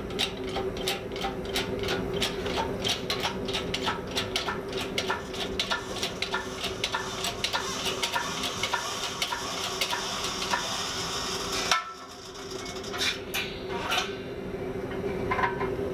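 Metallic clinks of steel being forged, about three a second and evenly spaced, over a steady hum from the shop machinery. The clinks and hum drop away briefly about twelve seconds in, then the clinks resume more sparsely.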